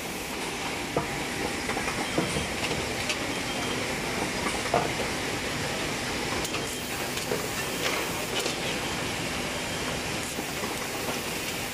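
Swift SWT36120M automatic cable tie machine working on motor stator wires: a steady hiss and machine hum with several short, sharp clicks as the handheld tie gun feeds, tightens and cuts cable ties.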